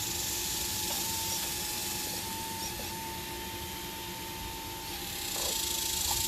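Hydraulic pump of an RC model Liebherr 954 excavator whining steadily, its tone dipping briefly several times. A hiss grows louder about five seconds in.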